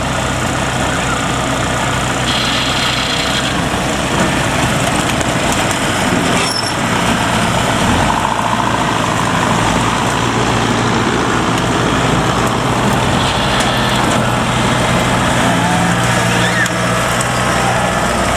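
Kubota DC70 combine harvester's diesel engine running steadily at close range, a constant loud mechanical hum.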